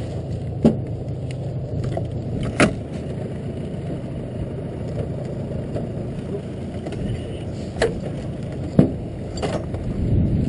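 A few sharp knocks on an aluminium jon boat as a paddlefish and gear are handled on its deck, over a steady low rumble.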